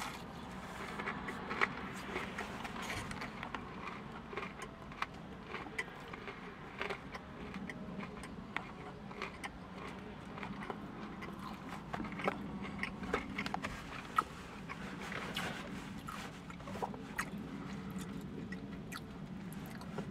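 A person biting into and chewing a crispy breaded chicken tender: small crunchy crackles and clicks scattered throughout, over a low steady hum.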